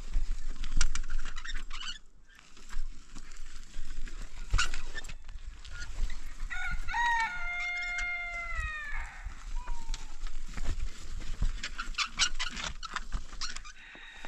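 Domestic fowl calling: a few short calls, then one long drawn-out call that drops in pitch at its end, about eight seconds in. Scattered knocks and clatter sound through the rest.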